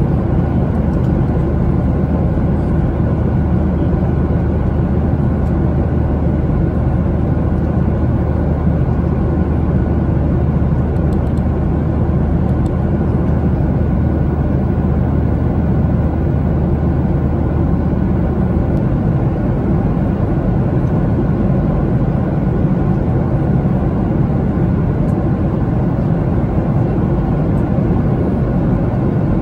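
Steady cabin noise inside a Boeing 737-800 in flight: a constant low roar of engines and rushing air, with a low hum that drops away about two-thirds of the way through.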